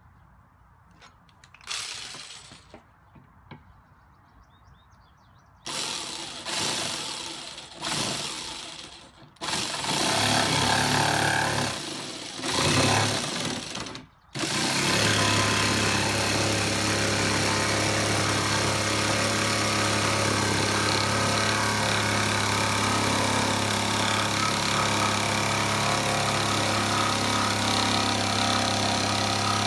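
A few short scraping and handling noises, then a power tool's motor starts about ten seconds in, cuts out briefly, and runs steadily with a low hum.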